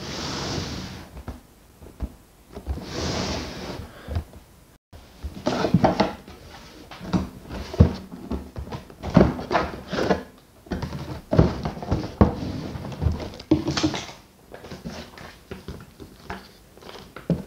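Cardboard toaster box being opened and unpacked by hand. Two short sliding scrapes come in the first few seconds, then a run of knocks, thunks and rustling as the flaps are folded open and the contents are lifted out.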